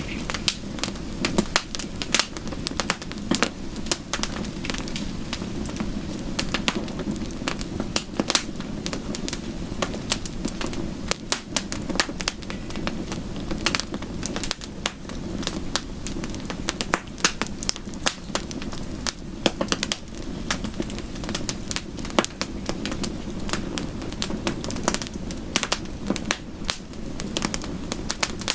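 Wood fire crackling, with frequent sharp irregular pops over a steady low rush.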